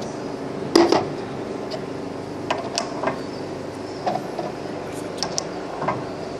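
A machine running with a steady hum, with scattered sharp clicks and knocks of metal work over it, the loudest about a second in.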